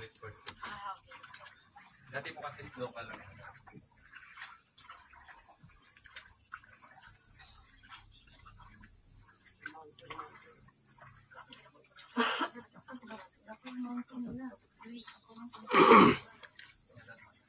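Steady high-pitched chorus of insects, unbroken throughout, with a short knock about twelve seconds in and a louder thump about sixteen seconds in.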